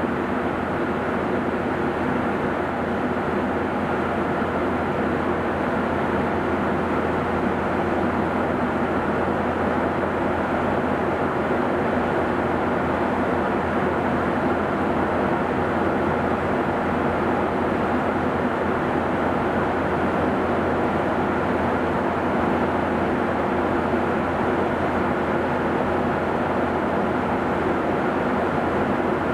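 Cabin noise of a Boeing 737-800 in cruise: the steady drone of its CFM56 turbofan engines and the airflow over the fuselage, even throughout, with a faint steady hum in it.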